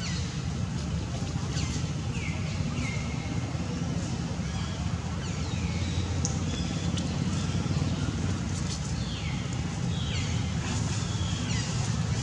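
Steady low rumble of wind on the microphone, with short high-pitched calls that fall in pitch several times over it.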